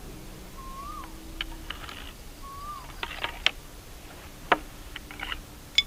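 Homemade PVC toy gun being cocked and handled: a run of sharp plastic clicks and knocks as the plunger rod is worked, with the loudest click about four and a half seconds in and another just before the end.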